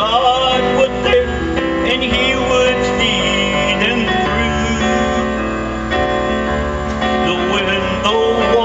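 A man singing into a microphone through a PA system, holding long, wavering notes over amplified instrumental accompaniment with keyboard.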